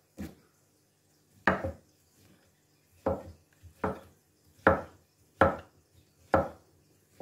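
A cleaver knocking down onto a wooden cutting board as a mushroom is sliced: seven sharp chops, the first two well apart, then coming a little under a second apart.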